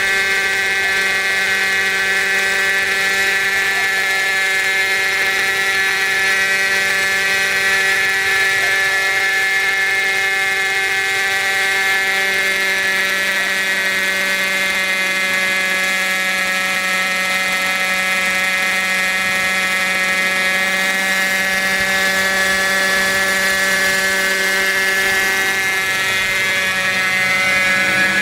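Hybrid RC helicopter in flight: its OS 50 Hyper glow two-stroke engine and rotor make a steady drone. The pitch dips slightly through the middle and rises again near the end.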